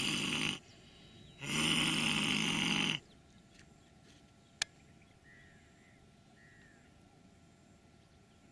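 A person in the yoga lion pose (Simhasana) roaring twice, mouth wide open and tongue out. The first loud roar ends early on, and the second, about a second and a half long, ends about three seconds in.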